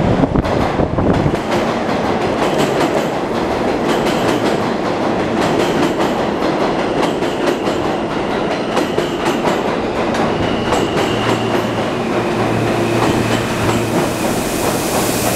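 An R160 subway train pulling into the station past the platform: a loud, continuous rumble with wheel clatter over the rails. A steady high-pitched whine comes in about two-thirds of the way through.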